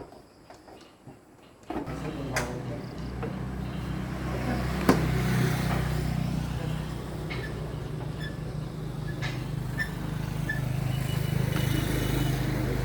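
An engine starts abruptly a little under two seconds in and then runs steadily, with a few clicks and one sharp knock over it about five seconds in.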